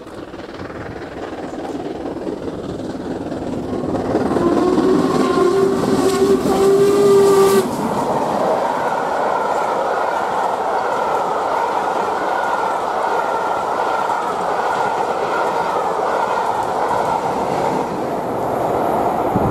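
Steam locomotive 6201 Princess Elizabeth approaching at speed, its noise building, then sounding a long, low whistle for about three seconds. After that, its train of coaches rolls past with the wheels clattering over the rail joints.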